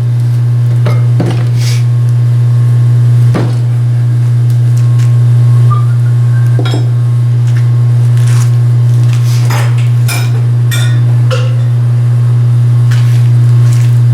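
Steel hand tools clinking and tapping on cast-iron vise parts while a part is worked loose: scattered short metallic clicks and clinks, a few louder knocks. A loud, steady low hum runs underneath throughout.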